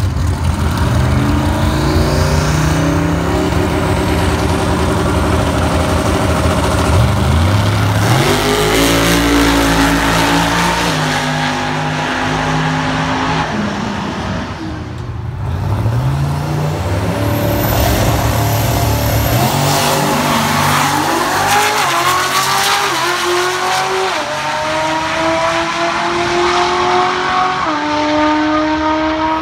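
Drag-racing cars' engines running roughly on the starting line, then launching about seven seconds in, with the revs rising and stepping through gear changes as they pull down the strip. After a brief dip around fifteen seconds, more rising, stepping engine pitch follows.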